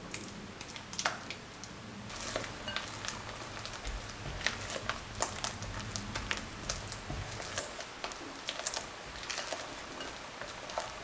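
A spatula folding thick mascarpone cream into whipped cream in a glass mixing bowl: soft squelching with irregular light clicks and scrapes of the spatula against the glass.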